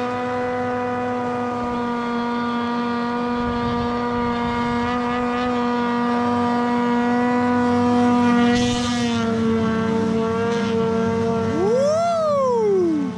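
Ski-Doo 600 RS race snowmobile's two-stroke engine running at high speed as the sled skips across open water, a steady high engine note. Near the end it passes close by, its pitch sweeping up and then quickly down.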